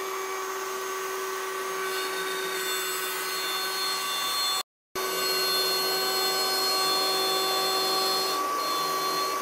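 CNC router spindle running at a steady high whine while a 1/4-inch down-spiral bit cuts out tiles in quarter-inch maple, on a Next Wave CNC Shark HD5. The sound cuts out for a moment about halfway through, then carries on.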